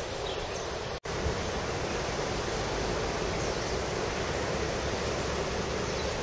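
Steady outdoor rushing noise with no distinct events. It cuts out for an instant about a second in, then carries on a little fuller in the low end.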